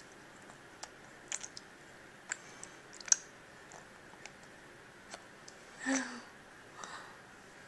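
Scattered soft clicks and smacks of a baby eating rice cereal off a spoon, the sharpest about three seconds in. A short baby grunt about six seconds in.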